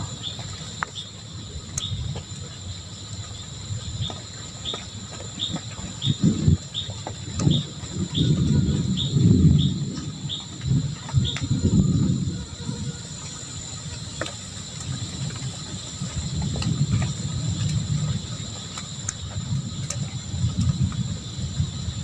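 Crickets or other insects chirring steadily at a high pitch, with a run of short repeated chirps, about one and a half a second, through the first half. Under them, irregular low rumbling swells and fades, loudest near the middle.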